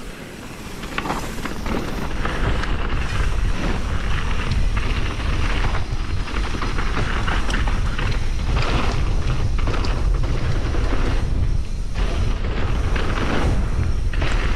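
Wind buffeting a chest-mounted action camera's microphone during a fast mountain bike descent, mixed with knobby tyres rolling over dirt and scattered short knocks from bumps. It builds over the first couple of seconds as the bike picks up speed, then holds steady.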